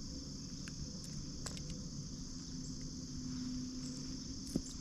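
Steady, high-pitched chorus of insects, with one sharp click near the end.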